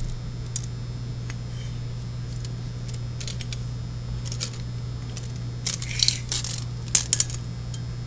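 Light metallic clicks and rattles from handling a brass surface bolt and a steel tape measure, a few scattered taps as the tape is laid along the bolt, over a steady low electrical hum.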